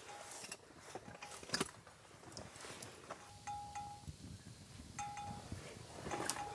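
Light clinks and taps, with a short steady mid-pitched tone repeating several times from about halfway through.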